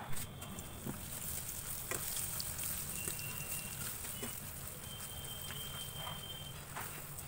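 Urad dal bhalla fritters deep-frying in hot oil in a pan: a steady sizzle with scattered pops.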